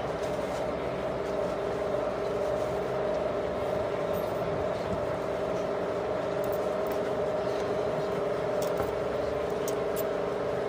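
Steady machine hum with two held tones, running evenly, with a few faint clicks.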